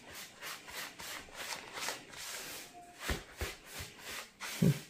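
Silicone spatula stirring dry semolina and flour in a plastic bowl: a repeated soft scraping, with a few light knocks in the second half.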